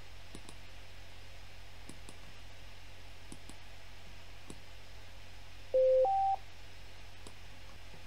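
A two-note electronic beep from the radio dispatch software, a lower note stepping up to a higher one, about six seconds in. Faint mouse clicks come now and then over a low steady hum.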